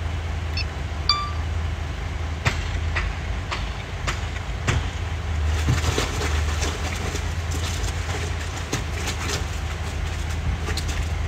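Radio-controlled scale model trucks working outdoors: a steady low motor hum with irregular clicks and rattles, thicker in the second half.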